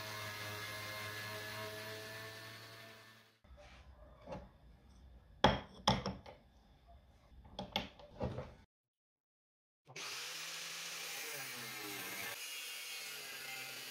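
Angle grinder running with a wire wheel brush scrubbing rust off a steel handsaw blade, stopping after about three and a half seconds. Then a few sharp knocks and clicks of grinding discs being handled on a wooden board, and, after a brief silence, the angle grinder cutting a steel square tube with a cut-off disc, a steady grinding hiss.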